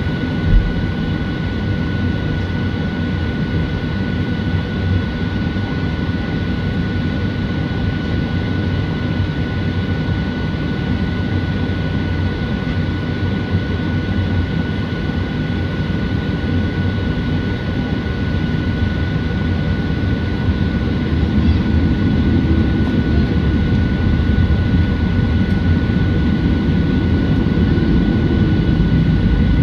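Steady cabin noise inside a Boeing 737-700 on the ground: a low rumble with a few steady high whining tones, growing a little louder in the second half. A single short thump about half a second in.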